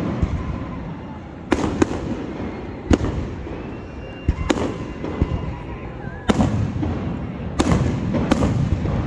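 Aerial fireworks shells bursting overhead: about seven sharp booms at uneven intervals, each followed by a rolling rumble, with the low rumble of the display running between them.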